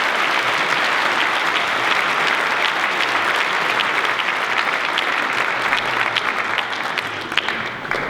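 Audience applauding, dense at first, then thinning to scattered individual claps and dying down near the end.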